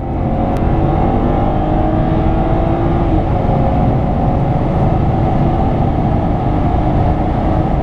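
Tuned BMW 335xi's twin-turbo inline-six under full-throttle acceleration, heard from inside the cabin, the engine note rising with road speed and an upshift from third to fourth gear partway through.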